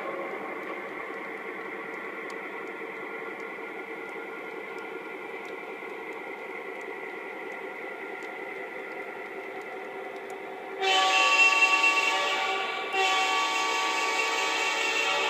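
O-gauge model train running steadily past on the track. About two-thirds of the way in, the Lionel Legacy FA-1 diesel's electronic sound system blows its horn in two long blasts with a short break between them.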